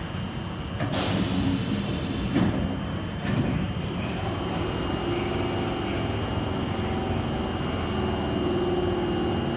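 Osaka Metro Tanimachi Line 22 series subway car, its doors working: a sharp hiss of air about a second in and two knocks, then steady train noise with a low hum.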